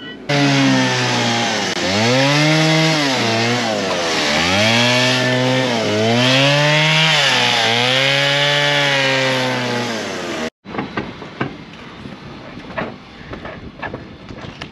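Stihl chainsaw cutting into a log, its engine pitch dipping and rising again and again as it bogs under load and revs back up, then cutting off suddenly about ten seconds in. Short clicks and scrapes follow.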